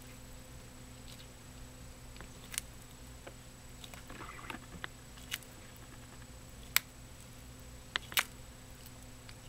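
Ornate box turtle's beak crunching a cockroach: a few sharp, scattered crunches and clicks, with a short crackly patch about four seconds in, over a faint steady hum.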